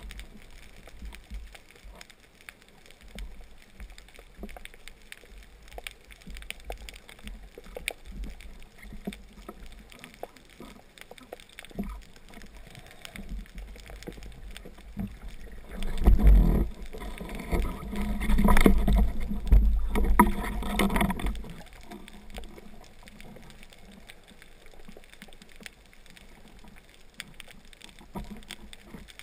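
Water noise on a spearfishing camera's microphone: a low rumble with scattered faint clicks, then a louder rush of water in several surges about sixteen seconds in, lasting some five seconds.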